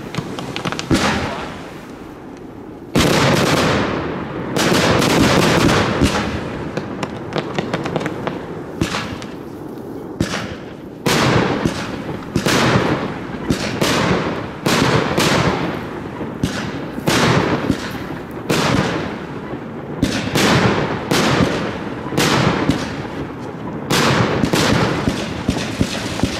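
Professional fireworks display heard from right beside the firing site: aerial shells and rockets launching and bursting in quick succession, sharp bangs with crackling between them. There is a short lull in the first few seconds before the bangs come thick and fast.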